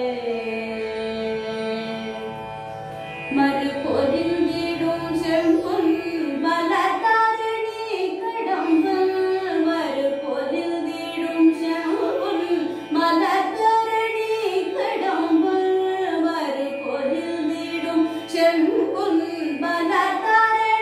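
A woman sings a Carnatic song in raga Mohanam over a tanpura drone. She holds one long note, then moves into quick, ornamented melodic passages from about three seconds in.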